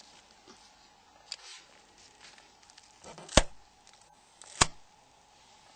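Two sharp clicks about a second apart, with faint rustling, from the plastic parts of a Nokia 6085's upper block being handled during disassembly. The glued-in LCD window is being pushed out.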